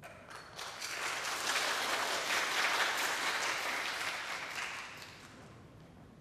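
Audience applauding, building over the first second or so and dying away about five seconds in.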